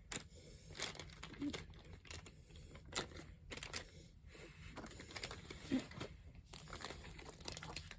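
Plastic food packaging crinkling and rustling as items are handled and moved around in a mini fridge, with irregular small clicks and knocks throughout.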